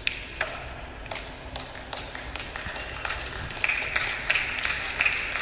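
Sharp click of a snooker cue tip striking the cue ball, then scattered light claps from the audience that grow denser after about three seconds.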